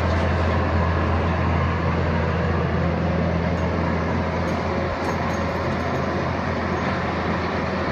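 Caterpillar mini excavator's diesel engine running steadily as it works, a constant low drone.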